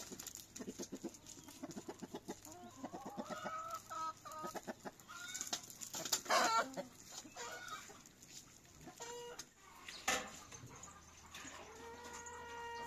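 A flock of chickens clucking: rapid strings of clucks and short calls, with one louder squawk about halfway through.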